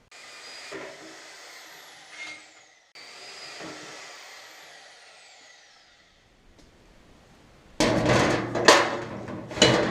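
Shop metalwork: a steady hiss for the first few seconds, broken off abruptly twice and fading away by about six seconds in, then several loud metal clanks and bangs from about eight seconds in.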